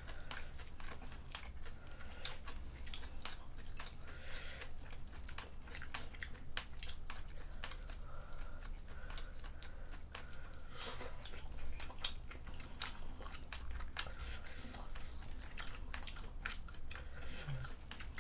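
Close-miked chewing and biting of a spicy seafood stew of squid, shrimp and beef tripe, with many short wet clicks of mouth and food following one another.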